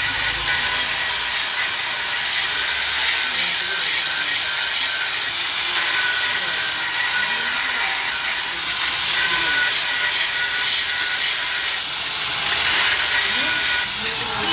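Handheld electric grinder grinding a steel piece clamped in a bench vice, throwing sparks: a continuous harsh grinding hiss over a motor whine, easing briefly about five, nine and twelve seconds in.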